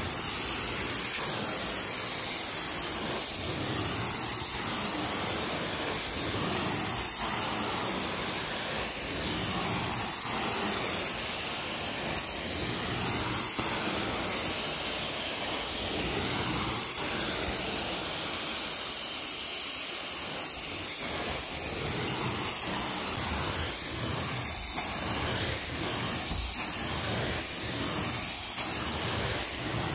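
Carpet-cleaning extraction wand working over carpet: a steady rushing hiss of spray and vacuum suction. The sound swells and dips about once a second in stretches as the wand is stroked back and forth.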